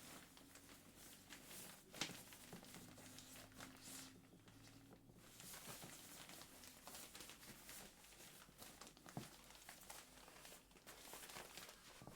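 Faint crinkling and rustling of an inflatable camping mat's fabric as it is rolled up to press the air out, with a couple of sharper ticks, about two seconds in and near nine seconds.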